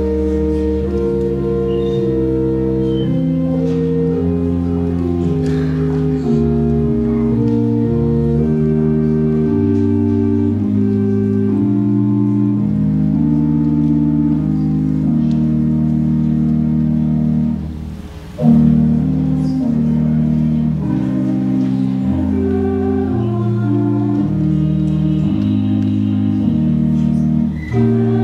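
Organ playing slow, sustained chords that change every second or so, breaking off briefly about two-thirds of the way through before going on.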